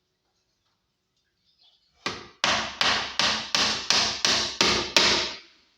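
A hammer driving a small nail into a wooden subwoofer box. Nine quick strikes, about three a second, start about two seconds in, and each rings briefly.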